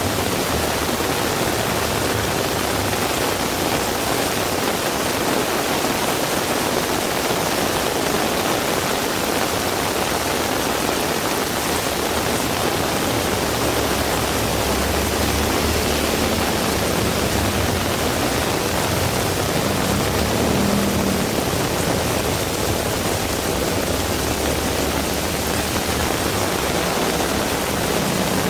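Heavy rain falling steadily, a dense, even hiss, with a low rumble that swells and fades in the middle.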